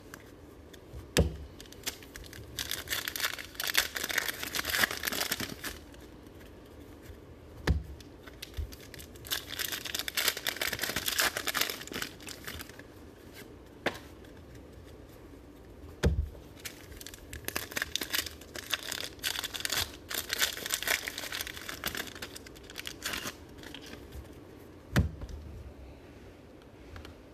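Trading card pack wrappers being torn open and crumpled, pack after pack. Four sharp knocks come about eight seconds apart, each followed by a few seconds of crinkling and tearing.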